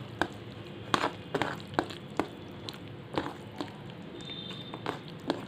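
Someone eating crispy fried fish: irregular sharp crunches and clicks, about nine in five seconds, over a steady low hum.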